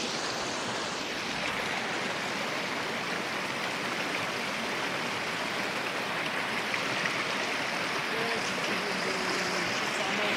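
Rocky mountain creek running fast over stones: a steady rush of water.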